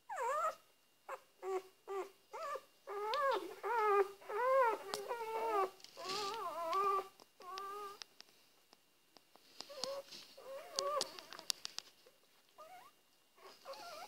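Four-day-old Dalmatian puppies whimpering and squealing: a quick run of short cries, each rising then falling in pitch, through the first eight seconds, then fainter scattered squeaks.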